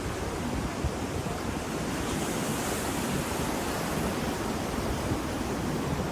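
Ocean waves breaking and washing on the shore, a steady rushing surf, with a wave's hiss swelling about two to three seconds in.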